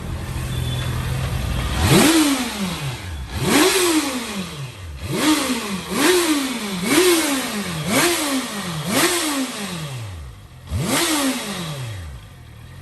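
Honda CBR650F inline-four engine idling, then revved about eight times in quick blips, each sharp rise in pitch falling slowly back towards idle, heard through its exhaust.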